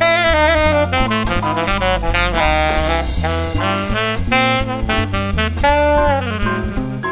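Conn 6M C melody saxophone improvising quick jazz lines in a swing solo, with a longer held note a little before six seconds in. A backing track of walking bass and drums runs underneath.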